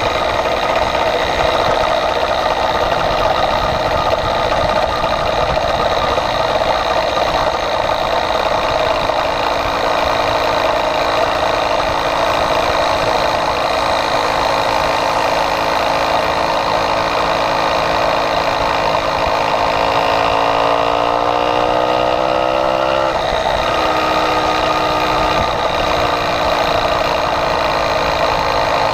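Small kit engine of a motorized bicycle running under way, a steady buzz. About two-thirds of the way through, its pitch climbs for about three seconds, then drops suddenly and settles again.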